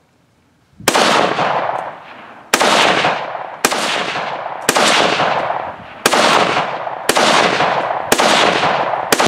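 Zastava ZPAP M90PS AK-pattern rifle in 5.56 NATO, fired semi-automatically eight times at an uneven pace of about one shot a second. Each report trails off in a long echo.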